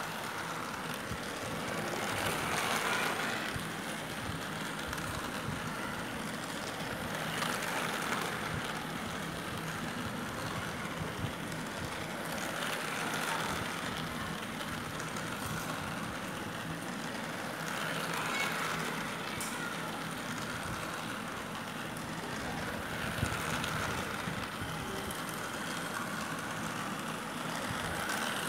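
Battery-powered plastic toy train running round a plastic oval track with a steady whirring clatter, growing louder about every five seconds as it comes past.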